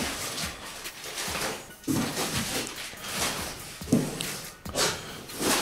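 Crumpled newspaper packing rustling and crackling as it is pulled out of a cardboard box, with the box's cardboard shifting and knocking now and then.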